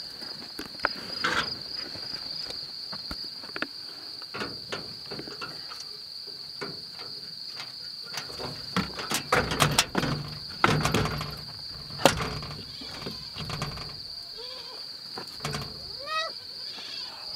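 Crickets chirring in a steady high trill, with clicks, knocks and rattling from a wooden plank door being handled, loudest around the middle.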